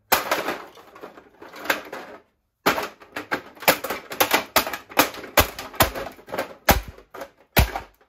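Brittle plastic housing of a Mistral Gyro-Aire box fan cracking and crunching under repeated shoe stomps: a rapid string of sharp cracks and knocks, with a brief pause a little over two seconds in.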